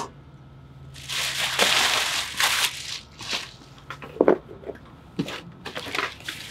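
Plastic packaging crinkling and rustling for about two seconds, then a handful of short crackles and clicks as plastic film inside a cardboard box is handled and cut with a utility knife.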